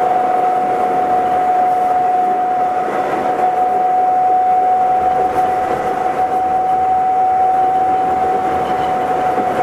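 Astram Line 7000 series rubber-tyred automated guideway train running, heard from inside the car: a steady whine from the electric drive over the rumble of the tyres on the guideway.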